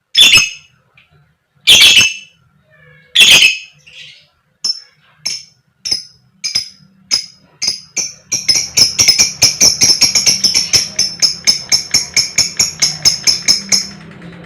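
Fighter lovebird calling: three loud, shrill 'koek' calls, then single sharp chirps coming faster and faster, which break about eight seconds in into a long rapid chattering run (the 'ngekek') that stops abruptly near the end.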